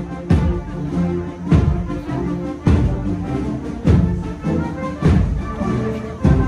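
Band music playing a processional dance tune, with a heavy drum beat about every 1.2 seconds under sustained melody notes.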